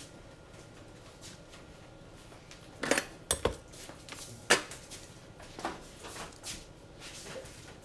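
Small hard objects, tools and parts, clinking and clacking on a workbench: a cluster of sharp knocks about three seconds in, a loud one a second or so later, then a few lighter taps.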